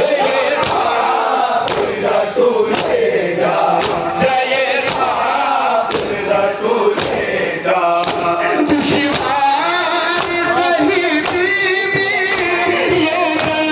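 Men chanting a Shia noha (Muharram lament) together, with a crowd of men beating their chests (matam) in unison, about one beat a second.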